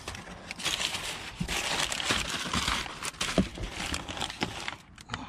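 Brown kraft packing paper crumpling and rustling as it is pulled out of a cardboard box, with a few light knocks against the box. The rustling is irregular and dies down near the end.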